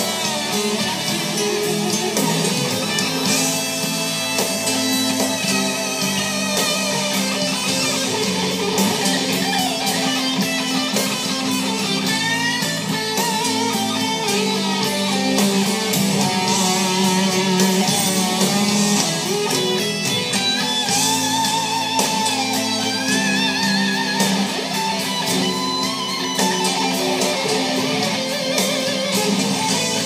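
Live rock band music played back through a home theater's Klipsch speakers, led by an electric guitar playing a lead line with wavering, bending notes over a steady band backing.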